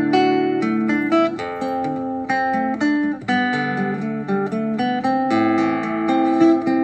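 Instrumental, guitar-led music of a karaoke backing track, with no singing, played through the Kimiso QS-4006 portable Bluetooth speaker.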